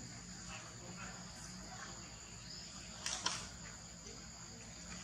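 Insects making a steady high-pitched drone of two sustained tones, with a brief sharp click-like sound about three seconds in.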